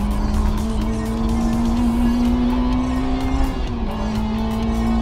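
Honda Integra DC5 race car's four-cylinder engine heard from inside the cabin, revs climbing steadily under acceleration, dipping suddenly about three and a half seconds in at a gear change, then climbing again. Music plays underneath.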